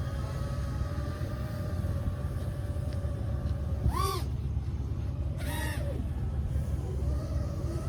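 FPV quadcopter motors whining at a steady, slowly drifting pitch over a low rumble of wind. About four and five and a half seconds in, two short tones rise and fall in pitch.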